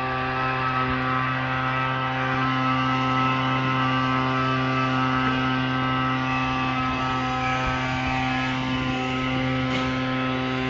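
A steady machine hum with a low, unchanging pitch.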